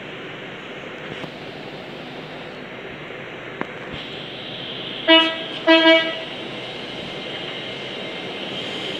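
LNER Class 800 Azuma train horn sounding two short toots of one pitch about five seconds in, the second a little longer. Under them is the steady hum of the train as it starts to pull away.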